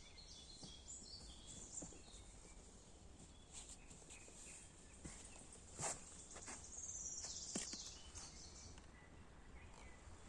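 Faint outdoor ambience with distant birdsong: scattered high chirps and a falling trill a little past halfway, with a couple of soft clicks or knocks.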